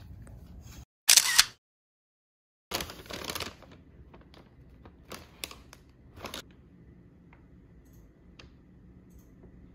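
iPhone camera shutter sound, loud and short, about a second in and again near three seconds, with dead silence between. A few faint clicks and taps follow.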